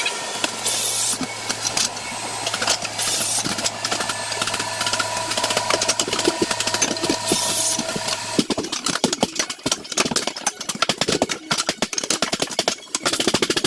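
A power tool's motor running with a steady hum, then, about eight seconds in, a fast run of rattling clicks that lasts to the end.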